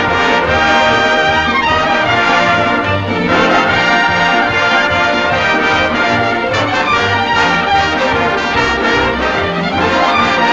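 Orchestral music led by brass, with trumpets and trombones playing sustained, full chords over a lower rhythmic pulse, in the style of a western film score.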